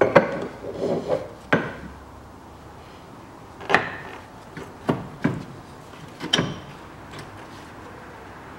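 Metal tools and suspension parts knocking and clanking as they are handled: about seven sharp, irregularly spaced knocks, some with a short metallic ring, the loudest near the start.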